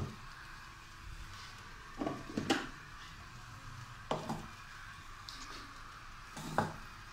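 Metal utensil clinking and knocking against an aluminium pressure cooker in a few short clusters, about a second apart and more, over a steady faint hiss of the pot heating on a gas flame.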